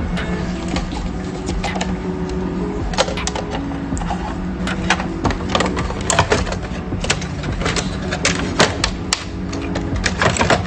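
Background music with steady notes, overlaid by irregular sharp clicks and knocks throughout, like plastic and metal parts being handled.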